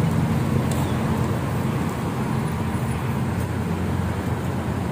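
Steady low rumble of road traffic and vehicle engines running.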